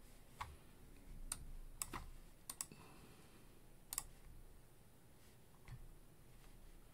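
About half a dozen faint, scattered clicks from working a computer, likely mouse or trackpad clicks and key presses, over quiet room tone.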